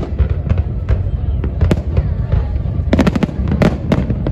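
Aerial firework shells bursting one after another, sharp bangs and crackling over a steady low rumble, with a dense run of reports about three seconds in.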